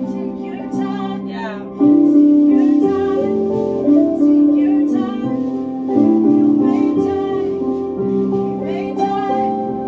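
Worship music from a live band: sustained chords that change every second or two, with plucked strings and a singing voice.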